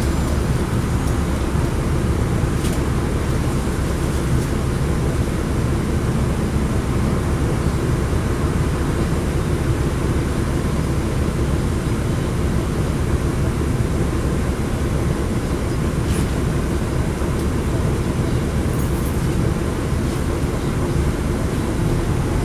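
Steady cabin noise aboard a 2010 NABI 40-SFW transit bus under way: its Cummins ISL9 diesel engine running at a steady pace with tyre and road noise, heard from a seat toward the back of the bus.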